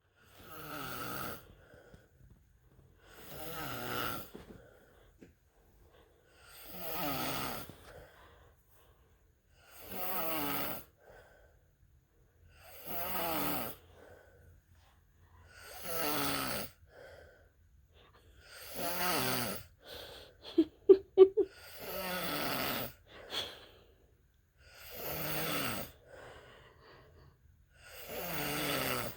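A man snoring in his sleep, about ten rasping snores, one every three seconds or so, with quiet between breaths. About two-thirds of the way through comes a quick run of several sharp bursts, the loudest sounds here.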